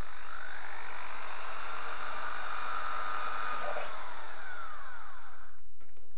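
Corded electric drill boring a hole through the side of an empty tin can, the motor running steadily under load. Near the end the motor winds down with a falling whine and stops as the drill is lifted off.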